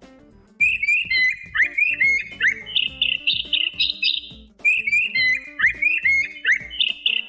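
Electronic talking-parrot toy playing recorded bird chirps and tweets in response to being greeted, two runs of quick high chirps with a short break between them, over faint background music.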